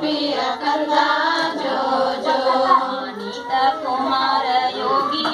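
Women singing a Kannada jogula, a cradle lullaby, together.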